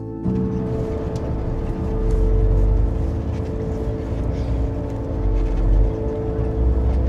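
Engine drone and road rumble heard from inside a moving vehicle, cutting in abruptly just after the start, with a steady hum over it and the low rumble swelling at times.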